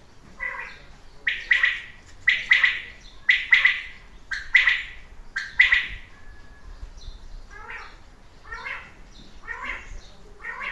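An animal calling over and over, about one short call a second; the first six calls are loud and the later ones fainter.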